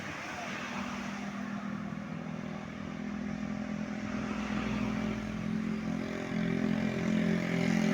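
Tour bus engine running with a steady low hum that grows louder toward the end as the vehicle approaches.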